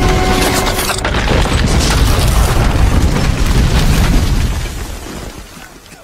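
Sound effects of a burning building: a loud, rumbling blaze with deep booms and crashes as walls give way, dying away about five seconds in.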